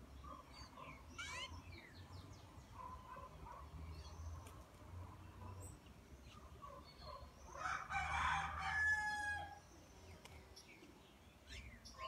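A rooster crowing once for about two seconds, a little past the middle, over scattered short chirps and whistles of wild birds.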